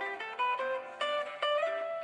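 A preloaded Samsung Galaxy Trend Plus ringtone playing: a quick melody of short plucked-string notes, several to the second.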